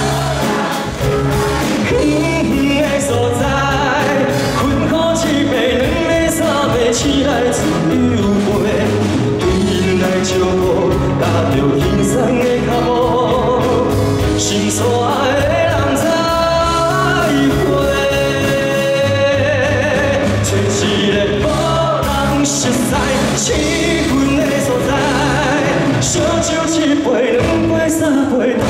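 Live performance of a Taiwanese Hokkien pop song: a male singer with instrumental backing.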